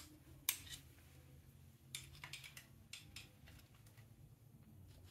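Faint sharp metallic clicks and scrapes of a screwdriver prying the old oil pump off the timing-side crankcase of a 1977 Triumph Bonneville T140V. There are a couple of ticks about half a second in and a cluster of them between about two and three and a half seconds in, as the pump is worked loose from its gasket.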